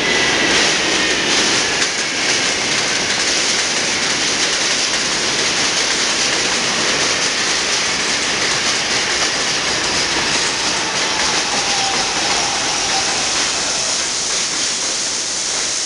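Modern stainless-steel R142 subway train running past on an elevated track at close range: a steady, loud rush of wheel and car noise with an electric whine that falls slowly in pitch.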